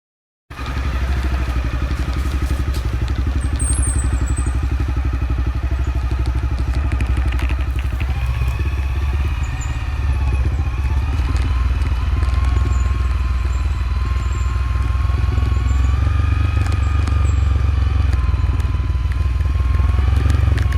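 Off-road motorcycle engine running steadily while riding down a steep dirt track, with a low steady rumble under it and a tone that creeps up in pitch in the second half. The sound cuts out for about half a second at the very start.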